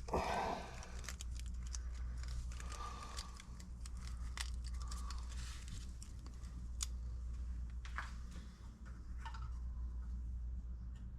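Scattered small clicks, taps and scraping of wire being bent and handled by hand, over a steady low hum.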